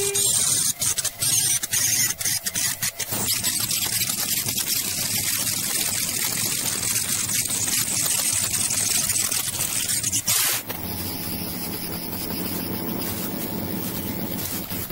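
Multi-spindle rotary CNC router cutting, a dense high hiss with crackling clicks over the first few seconds. About ten seconds in, it drops suddenly to a quieter, steadier running noise with a faint low hum.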